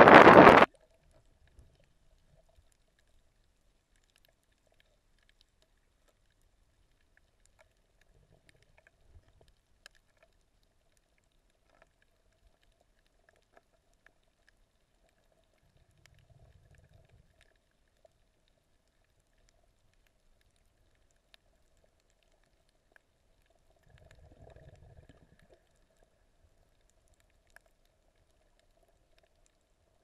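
Wind buffeting the microphone over open water, cutting off abruptly about half a second in. Then near silence underwater, with only a faint steady hum and a few soft low rumbles.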